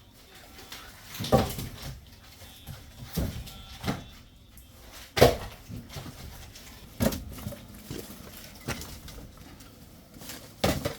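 Wooden firewood logs knocking and thudding as they are handled and set down, in irregular knocks every second or two, the loudest about halfway through.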